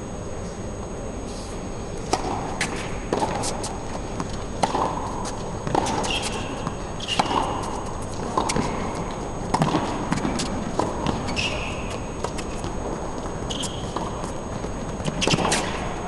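Tennis rally on an indoor hard court: rackets striking the ball and the ball bouncing, a sharp knock every half second to a second starting about two seconds in, with short high sneaker squeaks on the court surface between shots.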